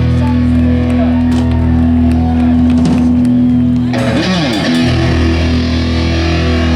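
Live rock band music: electric guitar and bass holding long sustained chords, shifting to a new chord about four seconds in.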